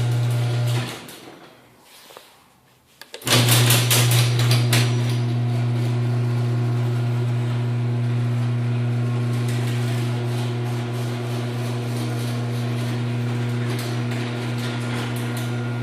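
LiftMaster 8165 chain-drive garage door opener motor running with a loud, steady hum. It stops about a second in; after about two seconds of quiet there are a couple of clicks and the opener starts again, running steadily on.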